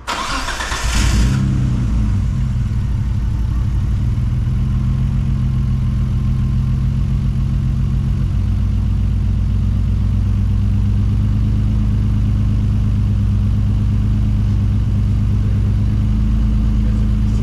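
R32 Nissan Skyline's engine started for the first time after a fresh oil change: a brief burst of cranking and catching at the start, then idling steadily, its pitch dropping slightly about eight seconds in.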